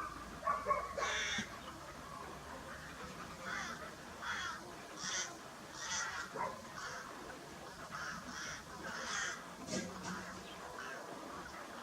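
Birds calling outdoors in a series of short calls, about one or two a second, over a faint background hiss.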